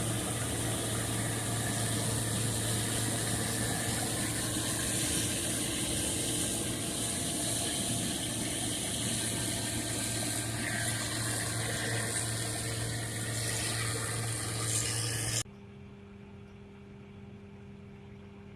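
Harvest machinery running steadily: a low engine hum under a loud rushing hiss. About fifteen seconds in it cuts off suddenly to a quieter, even hum.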